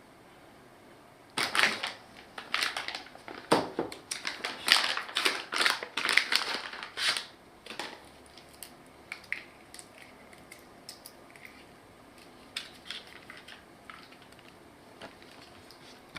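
Packaging being handled during an unboxing: crinkling, rustling noise for about six seconds, then scattered light clicks and taps.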